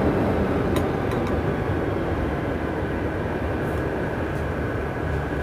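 A steady mechanical rumble with a faint steady whine on top, over which metal hand tools clink lightly a couple of times on a brass pipe fitting early on.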